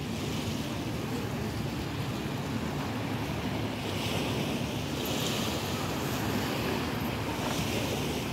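Wind blowing on the microphone: a steady low rumble with swells of hiss about four to five seconds in and again near the end.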